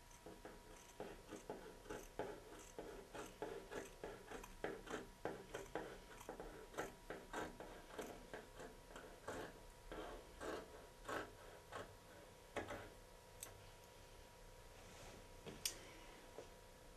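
Scissors snipping through T-shirt cotton, a steady run of faint snips roughly two a second as the shirt is cut straight across, stopping about twelve seconds in, with only a couple of stray clicks after.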